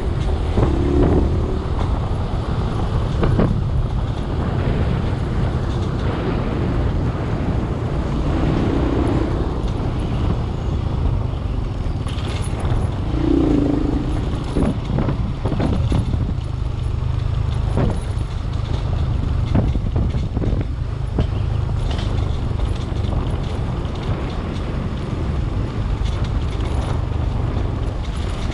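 Vehicle driving along a rough laterite dirt track: a steady low engine drone with frequent clatters and knocks from the bumpy surface. A few short low tones, each about a second long, sound near the start and again around a third and half way through.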